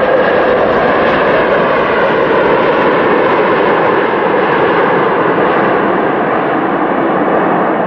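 Jet engines of an Airbus A330 rolling out on the runway after touchdown: a loud, steady rush of engine noise.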